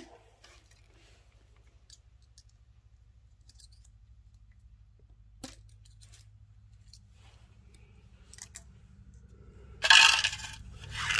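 A few faint metallic clicks as the Holeshot Arms Nitro rimfire benchrest action is handled at the breech. About ten seconds in comes a louder metallic clatter with ringing.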